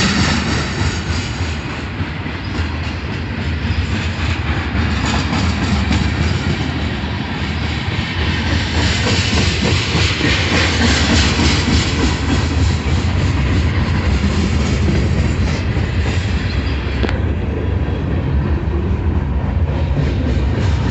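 A slow-moving freight train's covered hoppers and centerbeam flatcars rolling past close by: a steady rumble from the wheels on the rails, with many small clicks.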